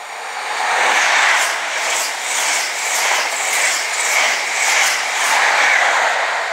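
CrossCountry HST, a class 43 power car with Mark 3 coaches, running through the station at speed. The noise swells as the power car arrives about a second in, then pulses evenly about twice a second as the coaches' wheels go by, and begins to fade near the end.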